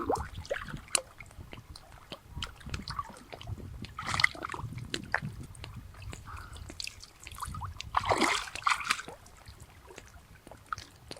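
Water splashing and sloshing in short, irregular bursts, with scattered small clicks. The splashing is louder about four seconds in and again around eight seconds in.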